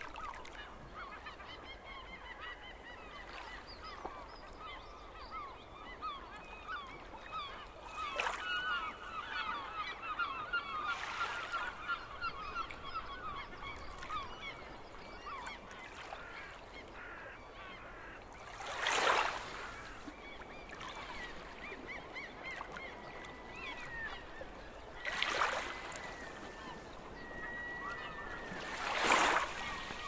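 Gulls calling over the sea: a busy stream of short cries, with some longer, level cries near the end. Three louder washes of water against the rocky shore come in the second half.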